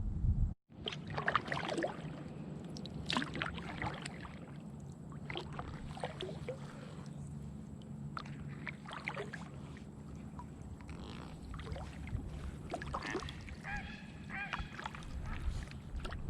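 Kayak paddle strokes splashing and dripping in the water, irregular and fairly soft. Near the end comes a short pitched call.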